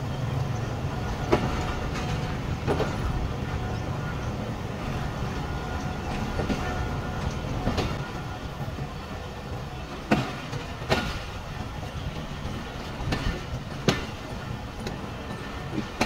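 Awam Express passenger train running on the line, heard from inside its brake van: a steady low rumble broken by irregular sharp knocks and clanks.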